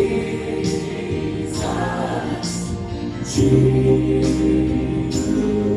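Worship music: a choir sings the word "Jesus" with sustained chords and a slow beat of soft cymbal or shaker strokes, and the harmony changes about three and a half seconds in.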